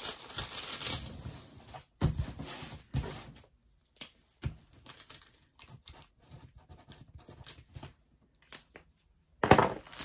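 Plastic packaging crinkling and rustling in bursts, with sparse light clicks and taps in between and a louder crinkle near the end.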